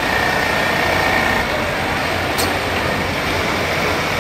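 Industrial programmable pattern sewing machine stitching decorative work on denim: a steady, dense running noise, with a faint high whine over the first second or so.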